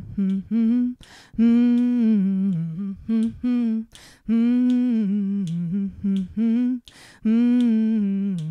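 A woman humming the bass part of a choir warm-up into a microphone. A short tune, a long held note followed by quicker falling notes, repeats about three times, with quick breaths between.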